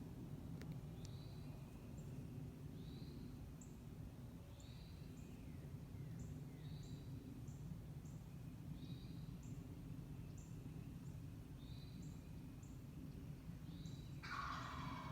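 A small bird calling a short high note over and over, about once a second, over low steady outdoor rumble. About a second before the end comes a louder rattling call that fits a wild turkey gobbling.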